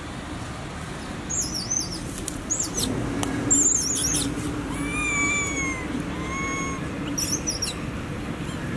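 High animal calls: several bursts of quick, squiggly chirps and two drawn-out arched whistles, one about five seconds in and one shorter just after, over a low steady hum.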